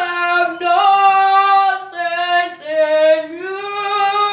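A boy singing unaccompanied in a high, opera-style voice, holding a slow series of long notes that step up and down in pitch.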